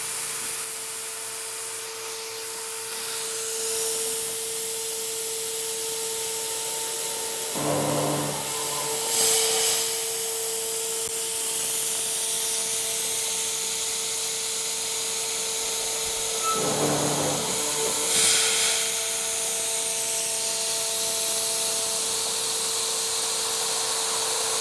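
CNC router spindle running with a steady whine while a carbide end mill mills holes in galvanized steel sheet, with compressed air hissing from the nozzles to clear chips and cool the bit. Louder, rough cutting bursts come in two pairs, about a third of the way in and again about two-thirds in.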